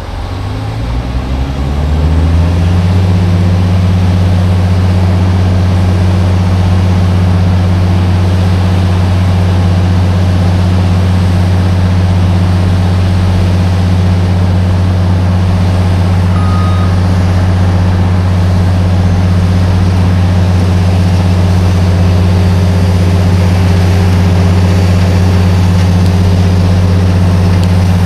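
Diesel engine of a GOMACO 9500 trimmer speeding up over the first two seconds or so. It then runs steadily at a constant high speed with a low, even drone.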